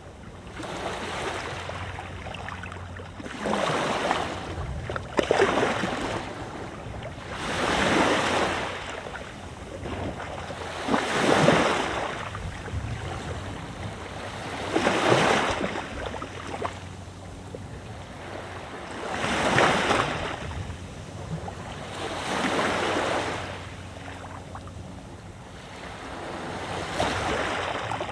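Mediterranean Sea waves breaking and washing up the beach, about eight surges that swell and fade one every three to four seconds, over a steady rush of wind.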